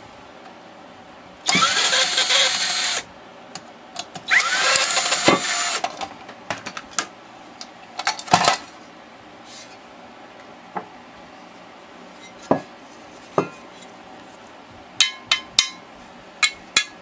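A power drill runs in two bursts of about one and a half seconds each. Scattered clicks, knocks and the clink of small metal parts follow as the projector's pieces are handled.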